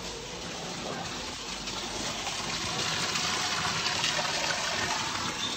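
Small waterfall splashing over stones into a pond, a steady rushing of water that grows louder over the first few seconds and then holds.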